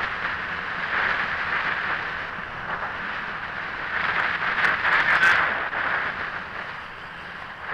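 Steady rush of wind and tyre-on-asphalt noise heard from a camera riding on a moving road bicycle, with a few faint clicks and rattles about four to five seconds in.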